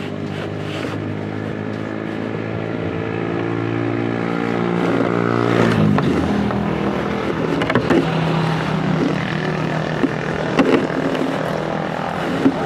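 Small motorcycle-type engine running under way, heard from on board. It builds in speed and loudness for about six seconds, then the pitch drops suddenly and it runs on lower, with a few sharp knocks and rattles from the ride.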